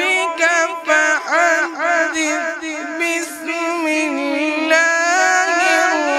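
A man's melodic Quran recitation (tilawat), chanted in one continuous voice with ornamented, wavering turns, then a long held, slowly rising line in the last couple of seconds.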